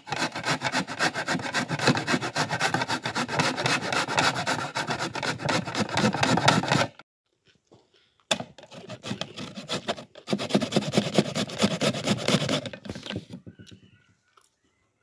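Raw cauliflower florets being rubbed against a metal box grater: a fast, continuous rasping of short strokes. It stops briefly about seven seconds in and again about ten seconds in, then trails off near the end.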